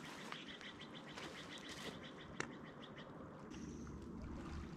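Red squirrel's warning chatter: a fast, even rattle of short calls that fades out about three seconds in, with a single sharp click about two and a half seconds in.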